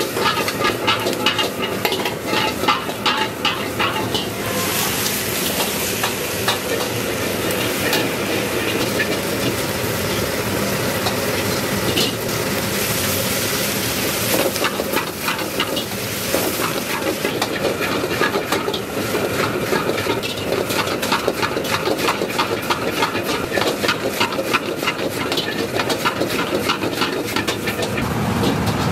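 A metal ladle rapidly knocks and scrapes around a wok as noodles are stir-fried over a high flame, with constant sizzling. The sizzle swells into a stronger hiss about five seconds in, and again from about twelve to sixteen seconds in.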